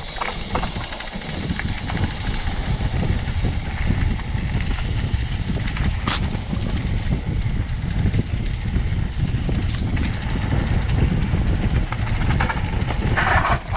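Mountain bike riding a rough dirt trail: a steady rumble of tyres and air on the bike-mounted camera, with quick rattling and clicking from the bike over bumps.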